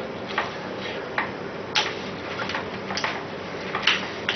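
Hand-cranked meat grinder being turned as it chops strips of silicone rubber: a run of irregular clicks and knocks, about one or two a second.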